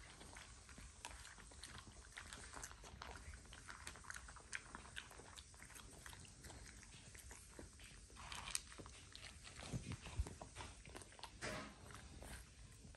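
French bulldog puppy eating dry kibble from a plastic bowl: faint, irregular crunching and chewing with many small clicks, a few louder crunches in the second half.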